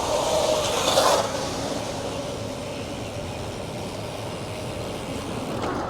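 Road traffic passing close by, with a vehicle going past loudly about a second in over a steady background of road noise.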